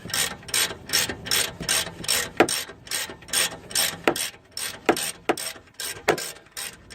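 Ratchet clicking steadily at about three strokes a second as it winds a bush-puller tool, drawing a worn rear axle bush out of its housing. A few short, sharp squeaks come through between the clicks.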